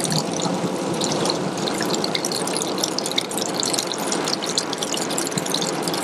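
Thin trickle of water running down a layered rock face and splashing into a shallow pool among pebbles: a steady splashing and trickling with many small quick drips.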